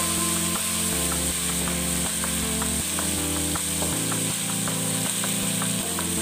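Background music: sustained chords that change about every half second over an even ticking beat, about three to four ticks a second.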